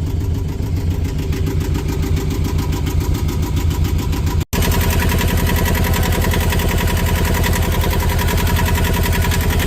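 Yanmar marine diesel engine idling steadily with an even, rapid beat while it warms up after a cold start. There is a brief gap about halfway through.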